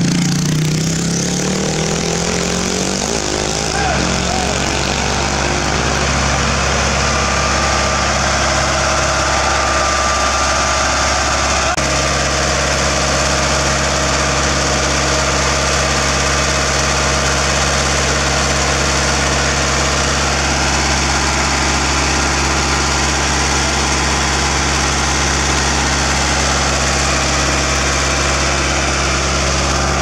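Heavy diesel engine running. Its pitch drops over the first few seconds, then it idles steadily, with a slight change in tone about twelve seconds in.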